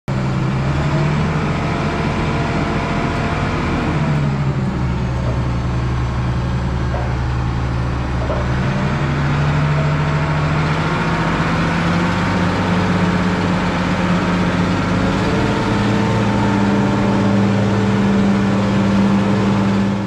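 Engine of a Hough H80B wheel loader running steadily, its pitch shifting a little a few times, with a drop about four seconds in and a slow rise in the second half.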